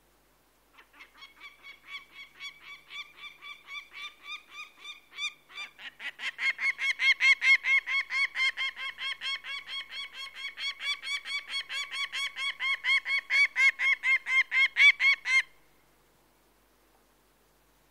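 Peregrine falcon giving its rapid, harsh kak-kak-kak call, about four to five notes a second. The calls start about a second in, grow louder after about six seconds, and break off near the end.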